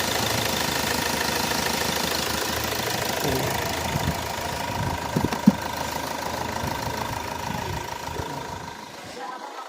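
Hyundai Accent's diesel engine idling steadily and quietly, much like a gasoline engine, with a few sharp clicks about five seconds in. It shuts off near the end.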